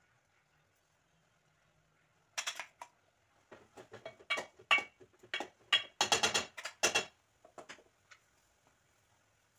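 Spoon scraping and knocking against a cooking pot while a thick vegetable and coconut mixture is stirred, in irregular clusters of clicks: a short run about two and a half seconds in, then a longer, busier run from about three and a half to nearly eight seconds in.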